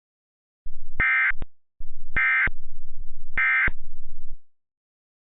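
Emergency Alert System SAME digital data tones: three short, identical bursts of buzzy electronic data about a second apart. This is the end-of-message code that closes the alert.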